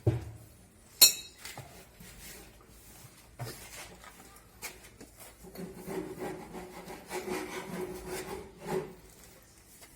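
Washing-machine tub parts being handled and fitted back together: a sharp knock with a brief ring about a second in, a few lighter knocks, then a stretch of scraping and rubbing of the tub halves against each other.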